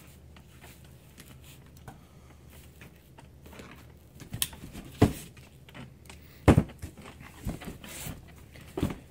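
Scattered clicks and knocks of an Asus S56C laptop being handled, as it is unplugged and its battery taken out, with two much louder knocks near the middle.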